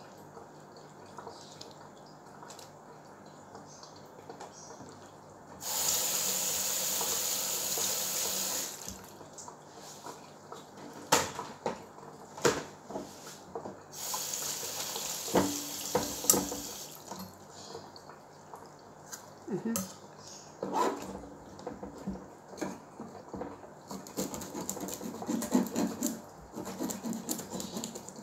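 Kitchen tap running into a steel sink in two bursts: about six seconds in for three seconds, and again about fourteen seconds in for two seconds, as prawns are rinsed. Between them come scattered sharp knocks and clatter of prawns and a knife being handled on the sink and cutting board, busier near the end.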